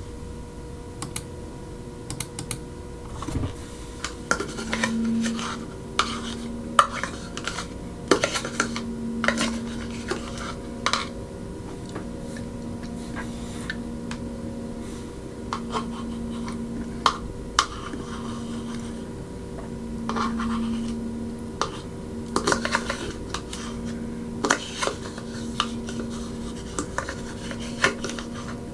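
A spoon scraping and clicking against a yogurt cup, mixed with scattered clicks of a computer keyboard and mouse. Under the clicks is a low hum that swells and fades about every two seconds.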